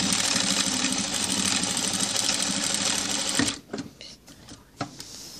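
Industrial sewing machine stitching through layered fabric at a steady fast speed, then stopping about three and a half seconds in, followed by a few small clicks.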